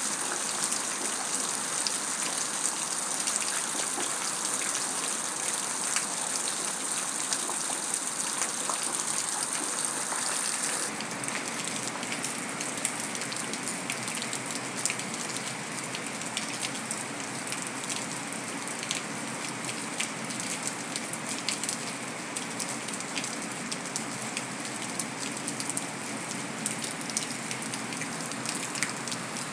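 Heavy rain falling steadily on concrete. About 11 seconds in, the sound changes abruptly to a slightly quieter rain with more distinct individual drops, as if a different stretch of recording starts.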